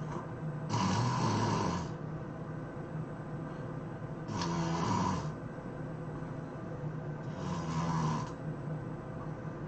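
A sleeping person snoring loudly: three long snores, each about a second, roughly three seconds apart.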